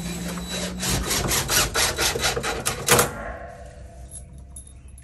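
Hand and tool work on a greenhouse exhaust fan's sheet-metal mounting plate. A cordless drill motor hums for about the first second. Then comes a run of quick rattling clicks and a sharp metallic clank about three seconds in, which leaves the plate ringing briefly.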